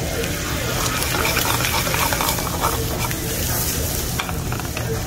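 Shrimp sizzling in hot oil in a stainless steel sauté pan: a steady frying hiss with scattered pops.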